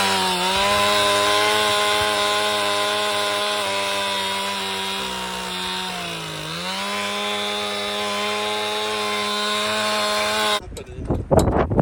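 A power saw runs steadily and cuts wood. Its pitch sinks under load about six seconds in, recovers, and then the sound stops abruptly near the end.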